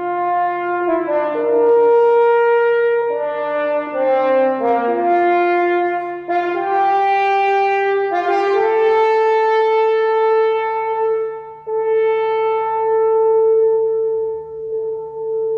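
French horn playing a melodic passage of changing notes, then holding one long note from about nine seconds in.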